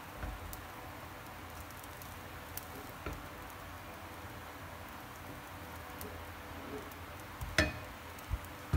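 Wooden spatula scooping fried rice from a nonstick frying pan into a bowl: soft scraping and shuffling of rice over a faint steady hiss, with a few light knocks, the loudest near the end.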